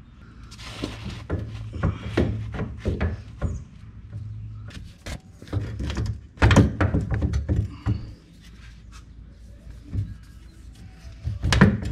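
Irregular knocks, clicks and scrapes of a KFI Stealth 4500 winch being worked by hand into its mounting bracket on a Polaris RZR's front frame, with a louder cluster of knocks about six and a half seconds in and another near the end.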